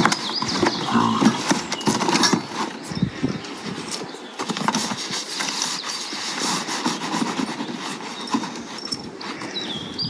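Rustling and knocking of gear being packed into leather pack boxes, with the odd step of a mule's hooves on pavement.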